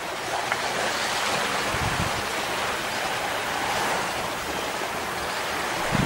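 Steady rushing outdoor ambience, a water-and-wind-like noise with no distinct events, and a faint low thump about two seconds in and again near the end.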